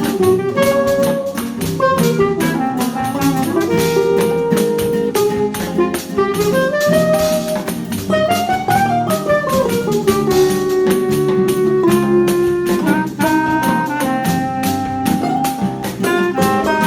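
Choro ensemble playing an instrumental piece: a smooth, gliding clarinet melody over seven-string and six-string guitars, mandolin, tuba, pandeiro and drum kit.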